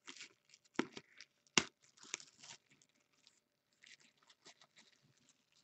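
Faint crinkling and tearing of packaging as trading-card packs are opened and handled, in scattered short rustles with a sharp click about a second and a half in.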